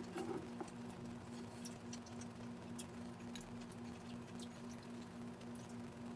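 Small wet clicks and smacks of someone eating king crab dipped in butter sauce, scattered irregularly, over a steady low hum.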